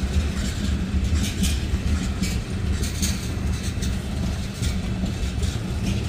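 Freight train of tank cars rolling past: a steady low rumble of steel wheels on the rails, with scattered sharp clicks and squeaks from the wheels and couplers.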